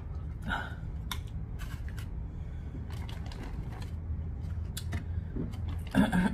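Close-miked eating sounds: chewing and mouth clicks, with scattered short sharp clicks and a couple of brief louder bursts about half a second in and near the end, over a low steady hum.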